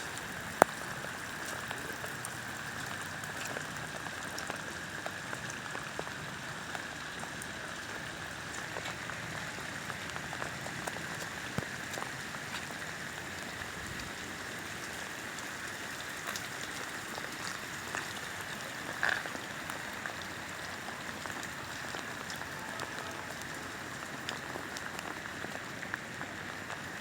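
Rain from a heavy storm falling steadily on surfaces, a constant hiss dotted with the ticks of single drops. One sharp click just after the start and a brief louder splash about two-thirds of the way through.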